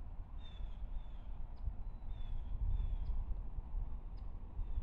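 Faint bird calls, a few short high notes falling in pitch, over a steady low outdoor rumble.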